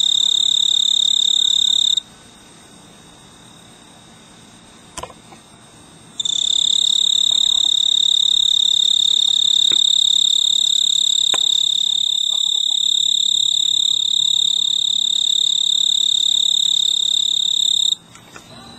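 Male snowy tree cricket (Oecanthus fultoni) singing its steady, high-pitched trill, the calling song a male uses to attract a mate. The song stops about two seconds in, starts again about four seconds later, and breaks off near the end.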